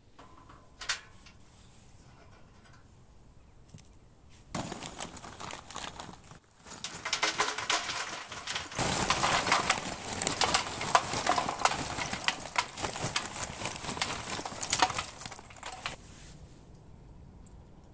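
Lumps of barbecue charcoal poured from a bag into a metal portable grill, clattering and rattling densely against the metal. It starts about four seconds in, pauses briefly, then runs on and stops near the end.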